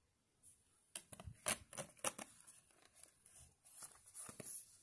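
Mediabook packaging being handled and closed: a string of sharp clicks, taps and papery rustles of the cardboard book and its disc tray, the loudest about a second and a half and two seconds in.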